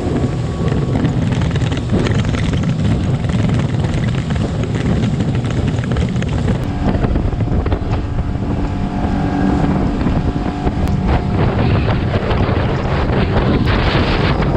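Small aluminium boat running fast over the water: steady engine drone under the rush of water and spray off the hull, with heavy wind buffeting the microphone.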